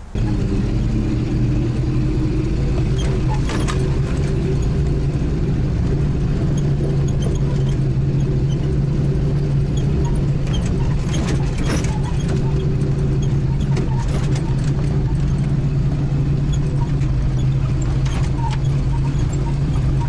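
Off-road vehicle's engine running steadily under way, with road noise and a few sharp knocks and rattles scattered through.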